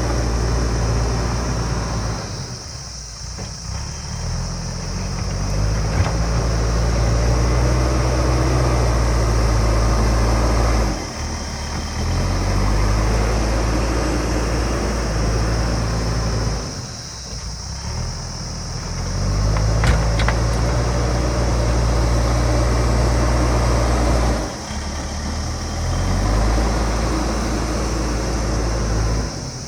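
JCB backhoe loader's diesel engine working under load, its pitch dropping and climbing back about every six to seven seconds as the hydraulics dig and lift.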